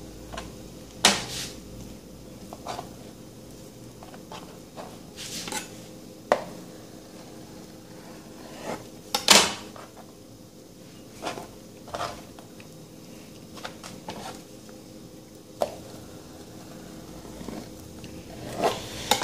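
Scattered light knocks and scrapes of a knife and fingers on a plastic cutting board as fat is trimmed from slices of smoked bacon, the loudest knock about nine seconds in. A faint steady hum runs underneath.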